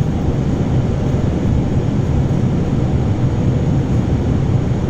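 Steady cockpit noise of an Airbus A320 on final approach: airflow and engine drone with a low hum.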